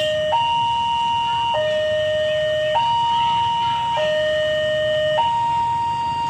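Railway level-crossing warning alarm sounding a steady two-tone signal, switching between a higher and a lower note about every 1.2 seconds, warning of an approaching train.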